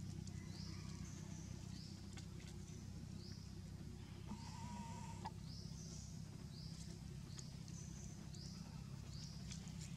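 Faint forest ambience: a short rising high chirp repeats about one and a half times a second over a steady low hum, with one brief whistle-like call about halfway through.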